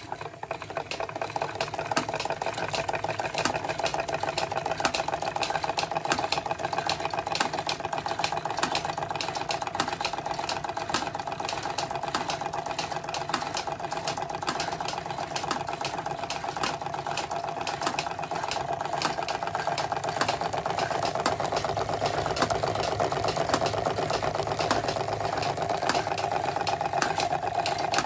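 Märklin 16051 live-steam two-cylinder compound model engine running at speed, with a fast, even ticking clatter. It grows louder over the first couple of seconds, then runs steadily.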